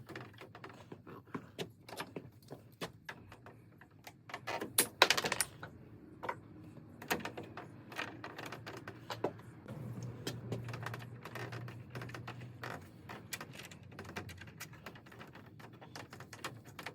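Scattered light clicks, taps and rattles of PEX pipe, fittings and hand tools being handled while a plumbing run is refitted, with a louder clatter about five seconds in. A low steady hum sounds for about three seconds from around ten seconds in.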